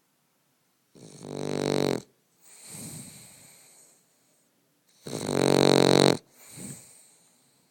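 Boston terrier snoring in its sleep: two breath cycles, each a loud buzzing in-breath of about a second followed by a softer, wheezy out-breath.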